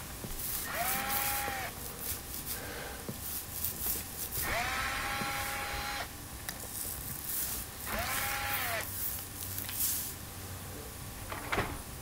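Cordless drill-driver backing out the screws that hold a dishwasher's mounting brackets to the cabinet: three short runs of the motor, each a steady whine that spins up and winds down. A few light clicks near the end.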